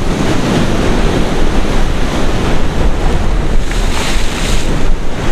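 Sea surf washing against a rocky shore, with strong wind buffeting the microphone in a steady low rumble.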